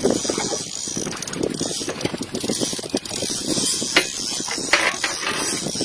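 Spinning fishing reel being wound under load, with a fast, continuous mechanical whirring and clicking, while a fish pulls on the bent rod.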